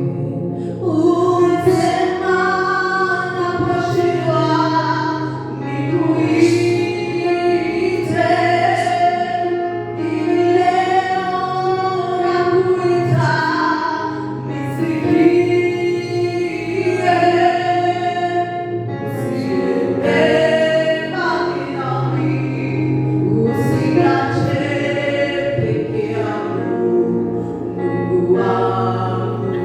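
Choir singing a slow gospel worship song, with long held notes over a steady low accompaniment.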